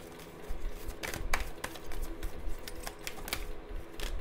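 A deck of tarot cards being shuffled by hand: sharp clicks and slaps of the cards against each other. There are several close together about a second in and more near the end.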